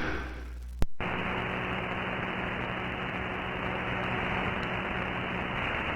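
A radio receiver's static and hiss on an empty channel, steady and cut off in the treble, with a faint hum under it. A single click comes a little under a second in, just before the hiss sets in.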